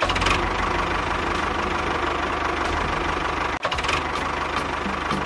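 Tractor engine running steadily with an even, rhythmic low chugging, broken for an instant about three and a half seconds in.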